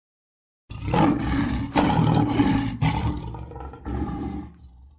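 Recorded lion roaring: a long roar starting just under a second in, then a shorter one about a second later that fades away.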